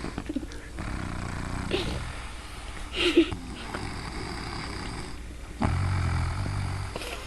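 A sleeper snoring: two long, low snores, one starting about a second in and a louder one about five and a half seconds in.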